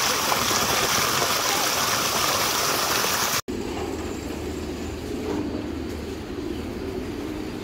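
Water gushing from a large pipe outlet onto the ground, a steady rushing noise. About three and a half seconds in it cuts off abruptly to a quieter steady low hum.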